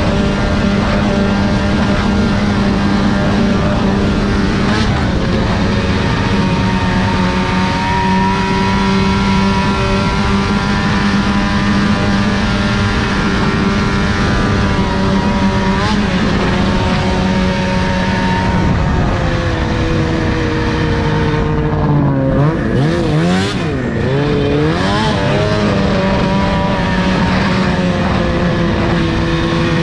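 Snowmobile engine running at riding speed, its pitch mostly steady. A little over two-thirds of the way through, the pitch wavers down and climbs back up.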